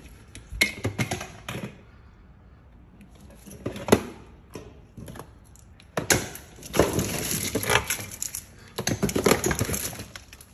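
Knocks, clicks and rustling of things being handled and shifted around a vehicle seat, with a single sharp knock about four seconds in and denser clattering from about six seconds in.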